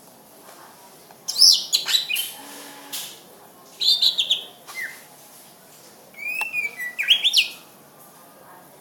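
Cucak ijo (green leafbird) singing: three short bursts of quick, sweeping whistled notes, a second or so apart.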